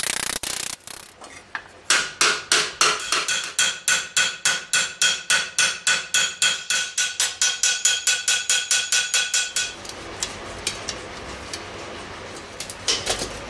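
Hand hammer planishing a 1 mm steel plate helmet piece over a steel stake: steady blows about four a second, each with a bright metallic ring. The blows start after a brief burst of rapid hammering and stop about ten seconds in, leaving quieter handling of the steel shell with a couple of taps near the end.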